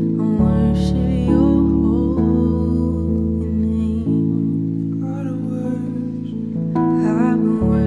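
Slow instrumental worship music: sustained chords on a Nord stage piano with acoustic guitar, the chords changing about every two seconds.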